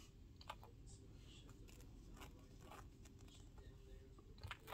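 Near silence: room tone with a few faint clicks and light scratches as a nail-polish brush and its small glass bottle are handled. One click comes about half a second in and a couple come near the end.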